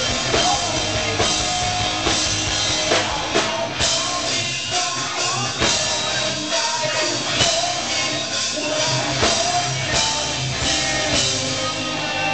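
Rock band playing live: electric guitars and a drum kit keeping a steady beat, with sung vocals.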